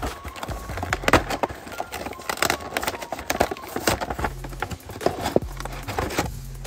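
Clear plastic blister packaging of a die-cast car 5-pack being flexed and pulled off its cardboard backing by hand: a dense run of irregular crinkles, crackles and snaps, the sharpest about a second in.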